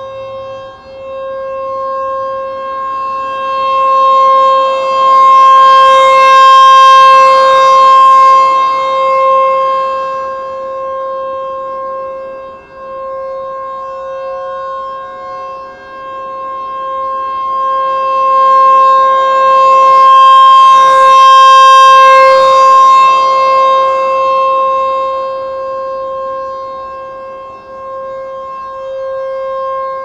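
Federal Signal T-128 dual-tone rotating outdoor warning siren sounding a steady chord at full speed. Its horn turns at about 4 rpm, so the sound swells loud as it faces the listener and fades as it turns away, peaking twice about 15 seconds apart.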